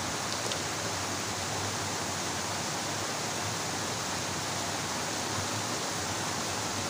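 Steady rush of water pouring down a small cascade into a shallow stream.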